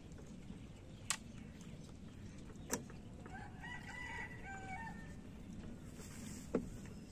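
A rooster crows once, starting a little past the middle, over a steady low background. Three sharp knocks come about a second in, near three seconds, and near the end; the last is the loudest sound.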